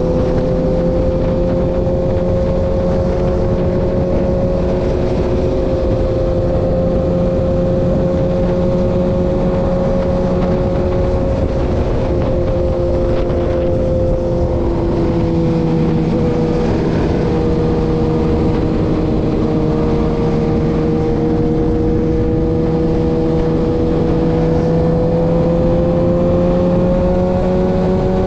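Motorcycle engine running steadily at highway cruising speed, a sustained drone whose pitch eases down slightly about halfway through and rises again near the end, over the rush of wind on the microphone.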